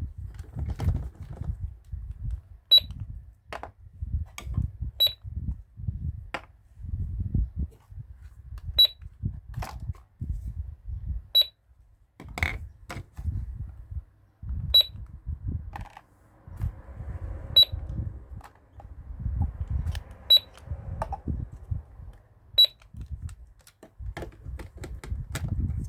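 Toy cash register's buttons being pressed, each press giving a click and a short high electronic beep, eight times a few seconds apart, with plastic clicks and low handling knocks in between.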